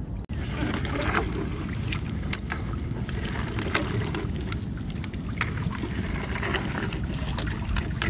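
Steady low rumble of wind on the phone's microphone, with scattered light knocks and rustles as a nylon gill net is hauled over the gunwale into a wooden outrigger boat.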